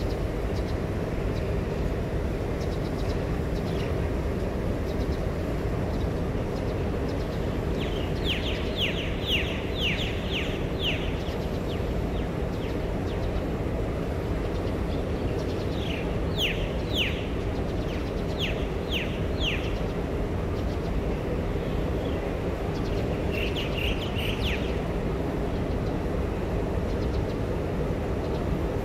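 A bird calls in three bouts of quick, falling chirps: about a quarter of the way in, just past halfway, and again later on. Beneath them runs a steady low rumble of outdoor background noise.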